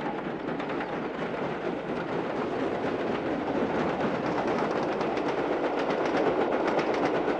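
LNER V2 class steam locomotive No. 4771 Green Arrow working hard at the head of a train: a rapid, even stream of sharp exhaust beats from its three cylinders over the rumble of the train, growing louder toward the end as it draws near.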